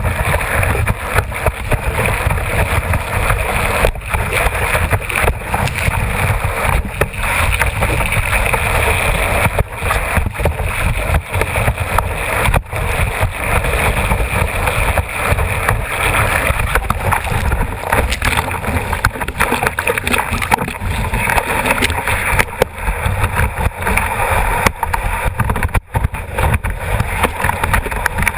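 Steady rush of wind and water on a camera mounted on a kiteboard as it skims fast over choppy sea, with frequent knocks and slaps of chop and spray hitting the board.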